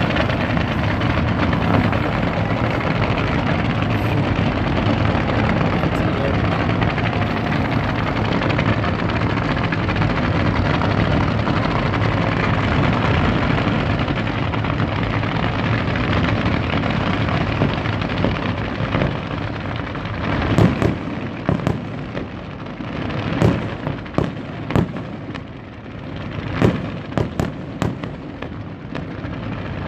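Fireworks display: a dense, continuous rumble and crackle of many overlapping bursts, which thins out about two-thirds of the way through into separate sharp bangs and pops following each other in quick, irregular succession.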